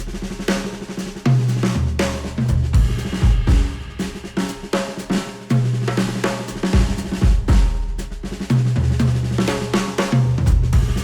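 Instrumental music with a drum kit beating a steady groove over long held bass notes, played back through studio headphones and picked up by microphones at the earcup.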